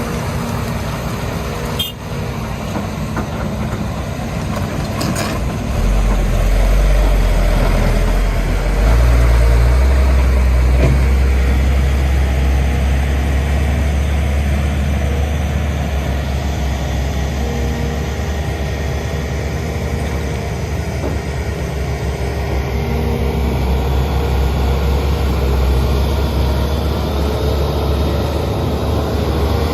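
Hitachi Zaxis 210 excavator's diesel engine running steadily. About six seconds in it grows louder with a strong low hum, which strengthens again near nine seconds and then holds.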